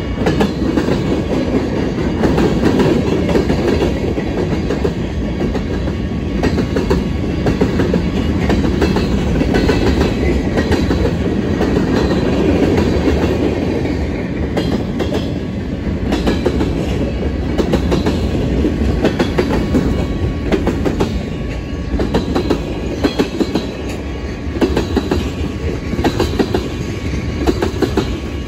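Freight train rolling past, with a steady rumble and the rapid, irregular clicking of steel wheels over rail joints.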